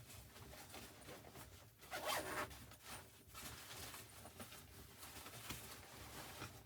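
A zipper being pulled in several short runs, the loudest about two seconds in.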